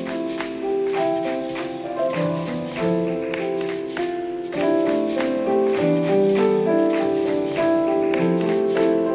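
Background music: an instrumental piece of held chords and notes, with light percussion ticking along in a steady beat.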